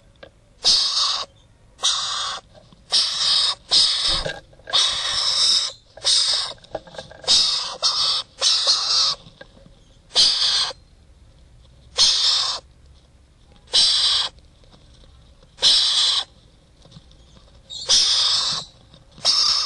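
Yellow-backed chattering lories giving a run of loud, harsh calls, each about half a second long. The calls come in quick succession through the first half, then about one every two seconds.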